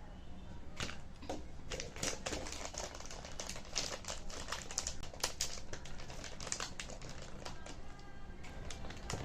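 Typing on a computer keyboard: a run of irregular key clicks, several a second.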